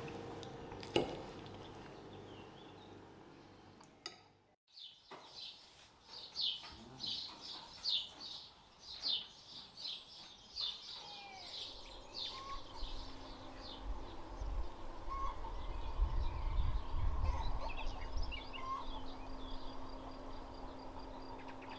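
Small birds chirping outdoors: a quick run of high chirps for several seconds, then scattered quieter calls over a low steady hum, with a low rumble swelling for a couple of seconds near the end.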